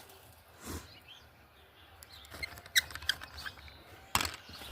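Plastic clicks and knocks from a car taillight housing and trim being handled and fitted back into place, a cluster of small clicks partway through and a sharper knock near the end.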